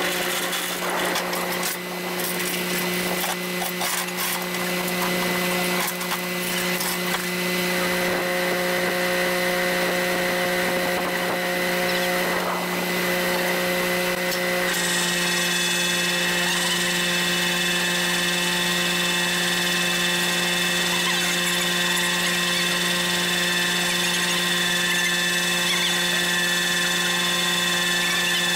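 Winch running steadily as it pulls a rolling drag-car chassis up a tilted flatbed deck on its cable, a constant hum with whining tones above it. About halfway through the sound shifts and a higher whine joins in.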